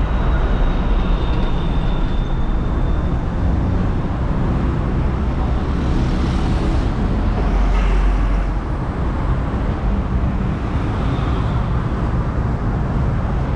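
Road traffic passing close by on a multi-lane road: cars going past one after another, with a motorcycle passing about six seconds in. A faint high whine sounds over the traffic in the first few seconds.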